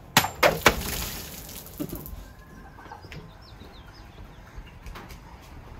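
Kukri blade chopping into a hanging plastic jug: three sharp hits in quick succession, then about a second of splashing and spraying, with one more knock near the end of it.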